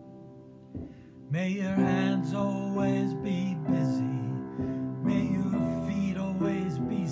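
A man singing a slow song over sustained keyboard chords; the voice comes in about a second in, after a moment of chords alone.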